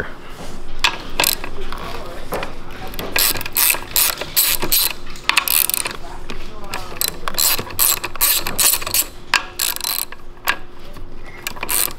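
Socket ratchet wrench clicking in uneven runs of quick clicks as 13 mm nuts are backed off the power-lead terminal studs of a winch motor.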